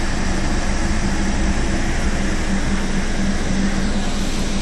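Scania OmniCity single-deck-chassis double-decker bus idling while standing at a stop: a steady engine hum with a constant low drone, heard from inside the upper deck.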